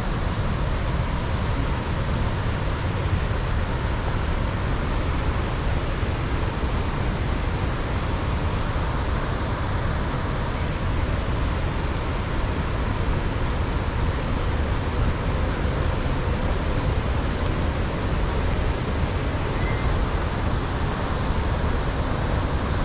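The Rhine Falls: a steady, unbroken rush of a large waterfall, heaviest in the low end.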